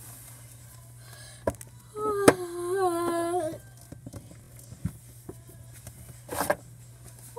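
A girl humming a short wavering tune for about a second and a half, starting about two seconds in, with a few sharp knocks from the dolls being handled.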